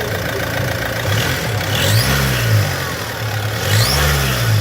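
Renault Kadjar 1.6 dCi four-cylinder turbodiesel idling and revved twice briefly, with a thin high whistle rising at the start of each rev. It is the strange noise the turbo has begun to make.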